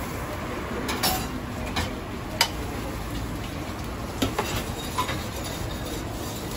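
Metal kitchen utensils clinking against trays and a bowl as a doner sandwich is put together. There are about six sharp clinks at irregular intervals, the loudest about two and a half seconds in, over a steady background noise.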